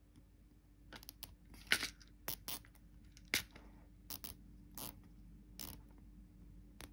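Small nylon cable tie being pulled tight around a bundle of thin wires, its ratchet giving a string of irregular sharp clicks, the loudest about two seconds in.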